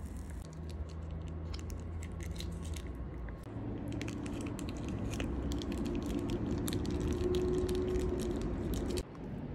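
Close-up eating sounds: biting and chewing with many small sharp clicks, over a steady low hum that comes in about a third of the way through and cuts off abruptly near the end.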